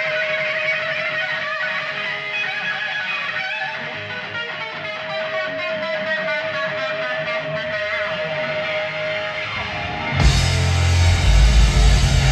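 Live electric guitar solo: quick runs of notes over a long held note, then about ten seconds in the full rock band crashes in louder, with heavy bass and drums and cymbals.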